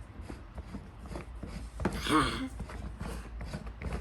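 Plastic toy mechanism of a Play-Doh cement truck clicking and ratcheting as it is twisted to push out dough, with a short vocal sound about two seconds in.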